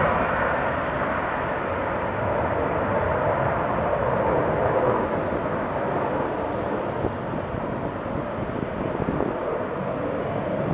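Jet noise from a Lockheed Martin F-22A Raptor's twin F119 turbofan engines as the fighter climbs away after takeoff: a steady rumbling roar that eases slightly about eight seconds in.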